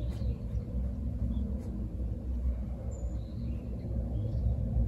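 A steady low rumble, with a few faint, brief high squeaks; no cat calls are heard.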